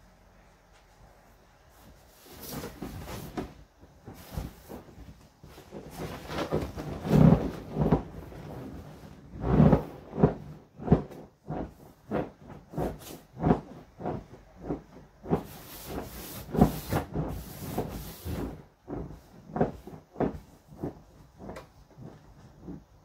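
Inflatable vinyl rocking horse squeaking and rubbing under a rider. It starts about two seconds in as he climbs on, then squeaks with each bounce, about one and a half a second.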